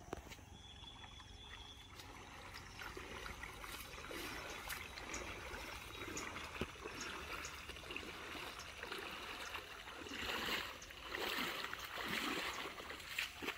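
Muddy pond water splashing and trickling around people wading through it, with louder splashing about ten seconds in.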